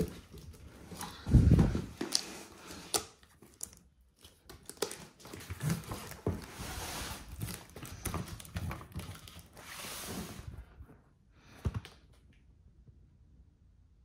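Packaging of a PC case being handled and opened: crinkling, rustling and tearing, with scattered knocks and one heavy thump about one and a half seconds in. The handling dies away near the end.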